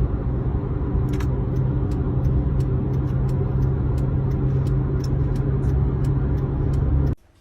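A loud, steady low rumble with light clicks scattered through it, cutting in and cutting off abruptly.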